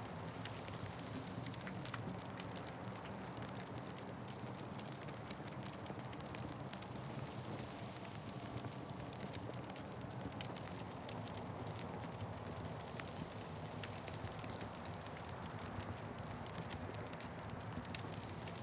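Wood fire crackling: a steady low rush of burning with frequent small sharp pops and snaps scattered throughout.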